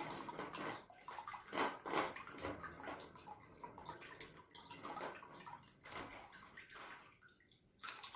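Water in a basin splashing and sloshing as it is stirred about, in irregular splashes, loudest about two seconds in.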